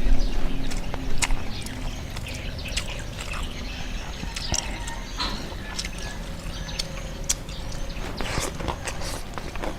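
Close-up eating sounds: wet chewing and lip-smacking, with irregular sharp clicks and smacks, louder in the first second or so.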